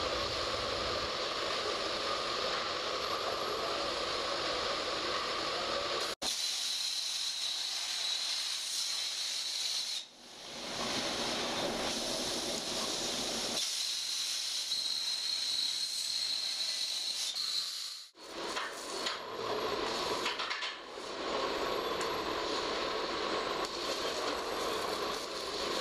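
Hypertherm plasma torch on a robot arm cutting a structural steel beam: a steady hiss with a thin high whine. The sound breaks off abruptly and comes back, sometimes at a different pitch, about six, ten and eighteen seconds in.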